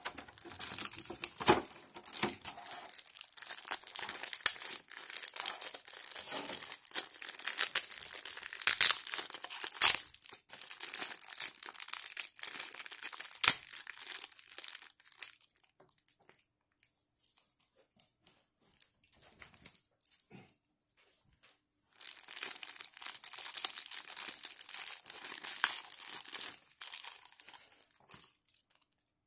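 Clear plastic blister trays and small plastic parts bags crinkling and crackling as they are handled and pulled apart to unpack a figure. The crackling comes in two long spells, with a quieter stretch of scattered clicks in the middle.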